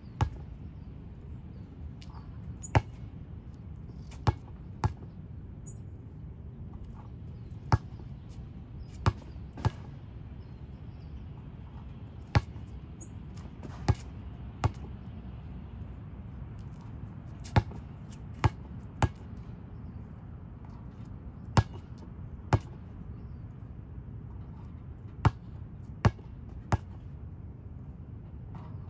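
Basketball bouncing on a concrete court: sharp single thuds every few seconds, often in runs of two or three with shortening gaps, over a steady low rumble.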